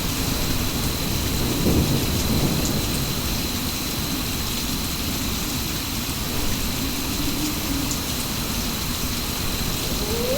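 Steady heavy rain, with a low roll of thunder about two seconds in. A thin, steady high tone runs underneath.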